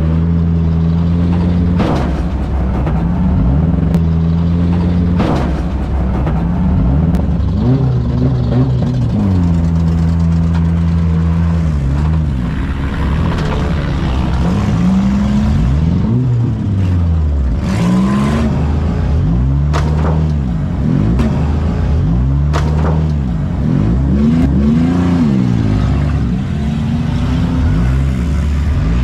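Demolition derby car engines revving up and down hard and repeatedly, with several sharp bangs of cars crashing into each other scattered through.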